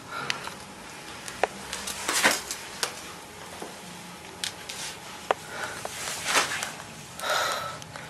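Soft rustling and handling noise with scattered small clicks and a few short breathy swells over the hiss of a handycam's built-in microphone.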